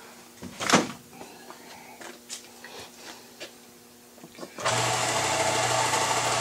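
Small knocks and one loud knock, then about four and a half seconds in an electric shop machine is switched on and runs with a steady hum.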